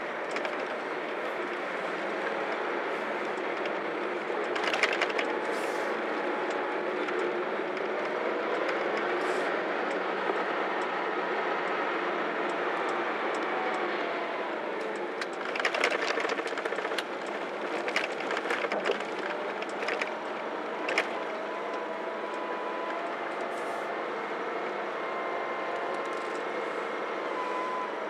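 Engine running steadily under a constant rumbling noise, with faint tones that drift slowly in pitch. A few short knocks and clatters come through, mostly in the second half.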